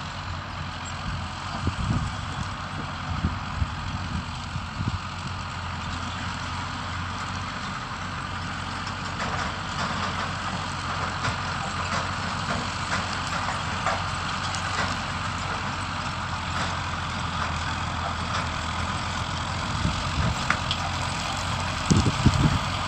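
Farm machinery engine running steadily in the distance, with gusts of wind buffeting the microphone near the start and again near the end.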